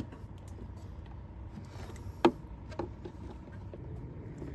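Hands fitting an LED reflector and its wiring into the back of a car's rear bumper cover: one sharp click a little over two seconds in, then a softer one half a second later, over a low steady rumble.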